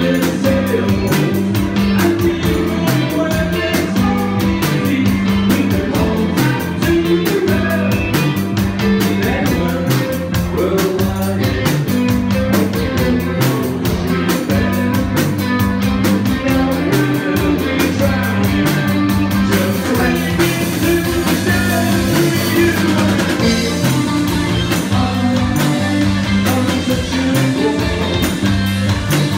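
Live rock band playing a song: a lead vocal sung over electric guitar and drum kit, with a steady beat.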